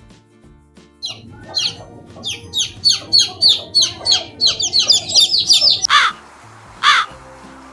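Quail chicks peeping in a quick run of short, high, falling chirps, followed near the end by a crow cawing twice, over background music.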